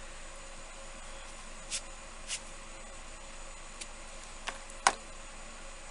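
Steady air-conditioner noise with a handful of light clicks and taps, the sharpest a little before five seconds in.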